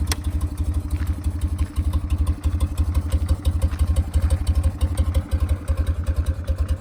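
1967 BMW R69S's air-cooled flat-twin engine idling steadily soon after a cold start, with an even, rapid exhaust beat.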